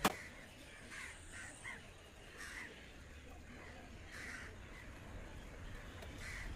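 Crows cawing faintly, short calls scattered about once a second. A sharp click right at the start.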